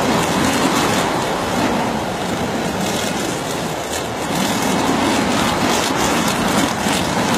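Gusty wind rushing over the microphone with the rumble of a twin-engine jet airliner's engines as it comes in to land in a strong crosswind.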